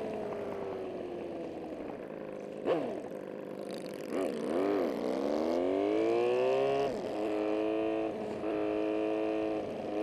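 Honda Magna V4 motorcycle engine heard from the saddle while riding: its pitch sinks as the bike eases off, dips again about four seconds in, then climbs smoothly as it accelerates and settles into a steady cruise. A single brief knock sounds just under three seconds in.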